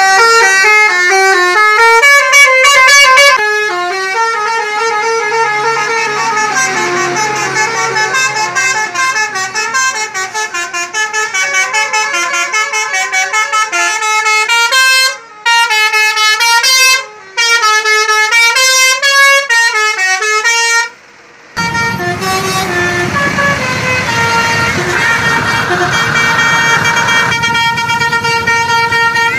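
Basuri telolet bus horn, a multi-trumpet musical horn, playing a tune in held notes that step up and down in pitch. It breaks off briefly three times in the middle, and from about two-thirds of the way through a steady low engine-like noise runs under the horn.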